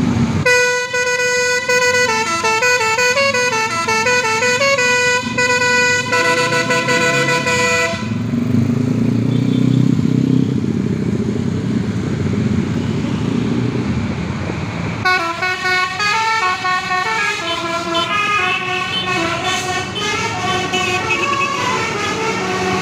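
Telolet basuri melodic air horn on a tour bus playing a tune in stepped notes, which stops about eight seconds in. A noisy rumble follows for about seven seconds, and the horn tune starts again about fifteen seconds in.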